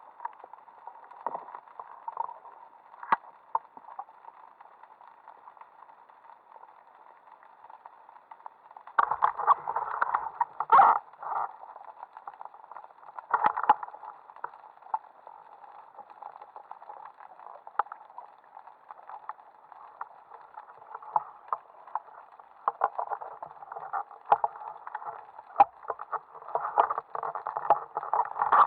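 Muffled underwater noise picked up by a camera in a sealed housing on a speargun: a dull water hiss with scattered clicks and knocks of gear. Louder clattering stretches come about nine to eleven seconds in, again near fourteen seconds, and near the end.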